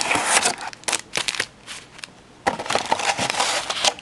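Plastic and foil packaging of a box of hockey card packs being handled, crinkling and crackling in bursts, quieter for about a second in the middle.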